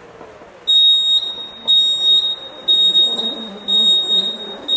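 Folding mobility scooter's electronic beeper sounding a high, steady beep about once a second, starting just under a second in, as the scooter is set moving.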